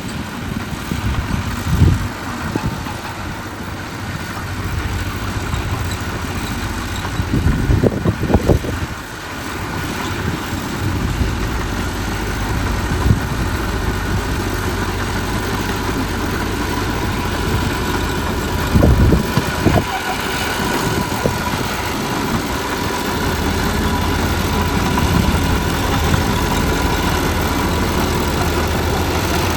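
Heavy diesel construction machinery running steadily at low revs, with a few short, louder surges or knocks standing out over the drone.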